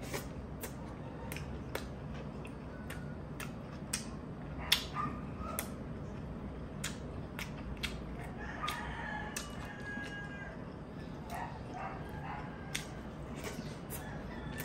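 Close-miked eating sounds: a scattered run of short mouth clicks and smacks while chewing and sucking tuna eyes stewed in vinegar, eaten by hand. A rooster crows in the background from about eight seconds in.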